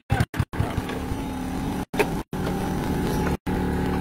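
Small motorcycle engine idling steadily. The sound cuts out for brief moments a few times.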